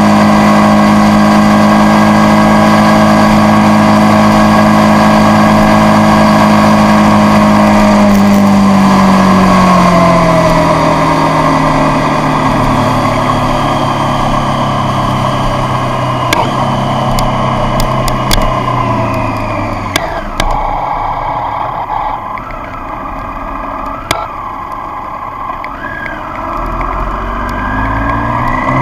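Triumph Street Triple's three-cylinder engine heard from on the bike: steady revs at cruise, then falling in pitch as the bike slows off the throttle, running quieter for a few seconds with a few short clicks, and rising again near the end as it accelerates away.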